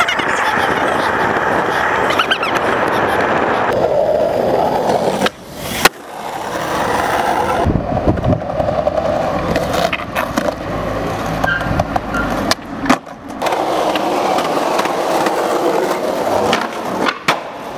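Skateboard wheels rolling over asphalt and concrete, a steady rolling noise that breaks off and changes abruptly a few times. A few sharp knocks stand out.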